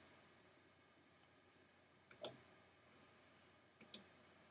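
Clicks of a wireless computer mouse in near silence: a quick double click about two seconds in and another near the end.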